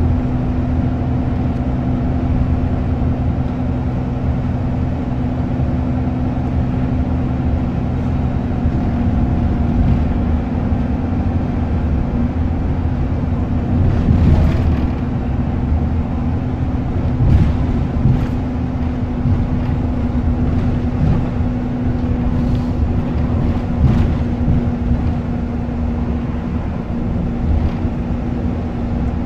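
Optare Versa single-deck bus under way, heard from inside the passenger saloon: a steady engine and drivetrain hum with road noise, and a few short knocks and rattles, the loudest about halfway through.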